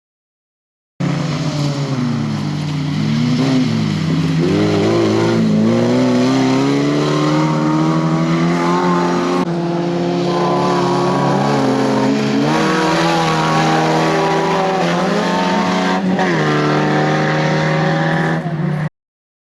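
Off-road race car engine running hard, its pitch climbing and dropping as it revs and changes gear, with several sudden jumps in pitch.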